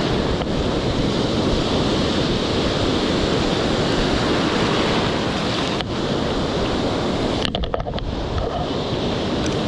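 Heavy surf from a stormy winter sea breaking and washing on the shore, steady and loud, with wind buffeting the microphone. A short cluster of clicks comes near the end.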